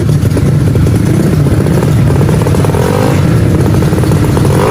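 Tuned 155cc automatic scooter drag bike engines running loudly at the start line, revved up briefly about three seconds in and again near the end.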